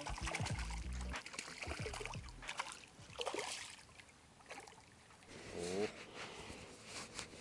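A small pike splashing at the water's surface as it is drawn in to the bank, followed by scattered clicks and rustling as the fish is grabbed and handled.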